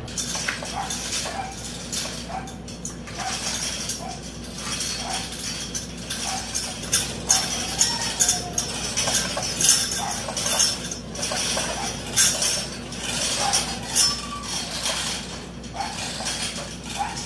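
Irregular light metallic clinking and clattering, many small knocks scattered through the whole stretch, over a steady low hum.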